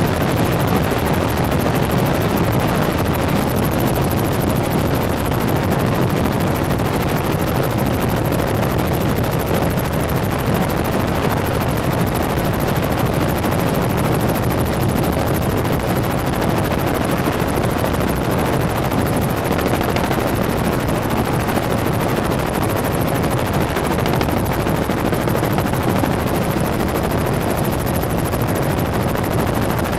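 Helicopter in flight: a steady, unbroken drone of rotor and engine noise.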